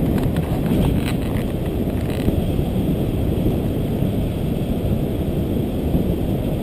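Steady low rush of airflow buffeting the microphone of a camera on a paraglider in flight.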